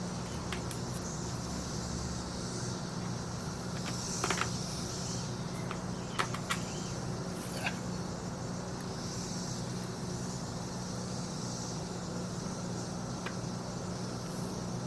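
A few light clicks and ticks of a small screwdriver and tiny fine-thread screws going into a laptop's bottom panel, over a steady low background hum.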